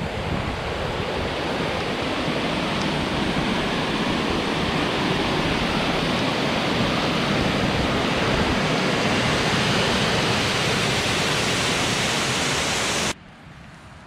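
Steady rush of a waterfall and its white-water rapids, loud and even, stopping abruptly about a second before the end.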